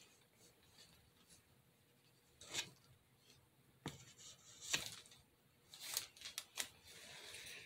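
Metal ice cream scoop scraping and digging through thick lightweight spackle in a plastic tub: a handful of short, faint scrapes and sharp clicks, mostly in the second half.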